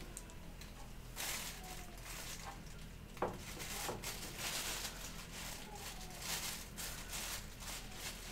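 Plastic shopping bag crinkling and rustling in irregular bursts as gloved hands wrap it around a glued scarf joint in a wooden kayak stringer, with one sharp click about three seconds in, over a low steady hum.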